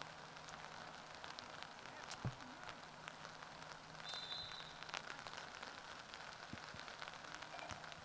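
Faint outdoor ambience at a sports field: a low crackling hiss with scattered light taps and a steady faint hum, and a brief high tone about four seconds in.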